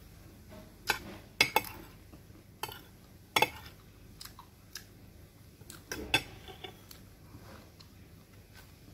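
Metal fork clinking and tapping against a glass food container: about seven sharp clinks at uneven intervals, the loudest near one and a half and three and a half seconds in.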